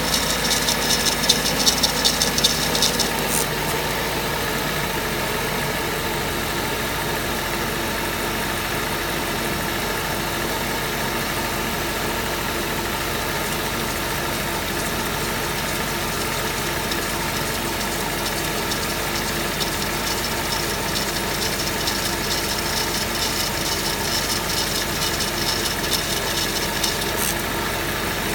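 Mercedes-Benz 500E's V8 idling steadily while its squealing accessory drive belt is water-tested. A high-pitched, rapidly pulsing noise sits over the idle for the first three seconds, then comes back about twenty seconds in and stops suddenly near the end.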